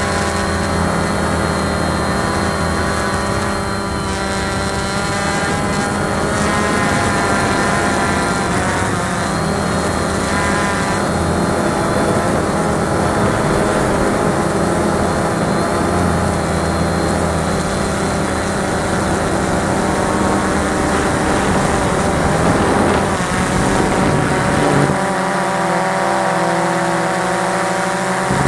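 Cheerson CX-20 quadcopter's four brushless motors and propellers whining in flight, close to the onboard camera's microphone. The whine holds several pitches that drift up and down. The low rumble drops away near the end, leaving a cleaner whine.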